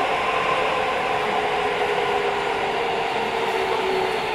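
Interior running sound of a Keio 5000 series electric train at speed: a steady rumble of wheels on rail with a continuous whine of several steady tones from the drive.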